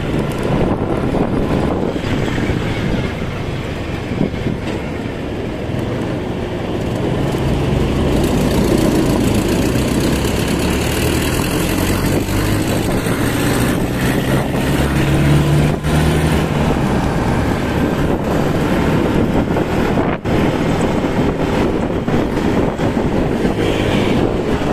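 Wind rushing over the microphone and road noise from a moving motor scooter in traffic, with the scooter's engine hum underneath; steady throughout, a little louder from about eight seconds in.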